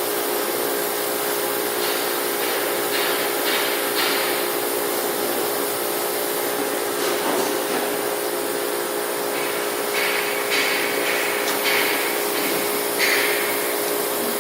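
CNC laser cutting machine running: a steady hiss with a constant hum, broken by short, louder hissing bursts several times, in two clusters about two to four seconds in and ten to thirteen seconds in.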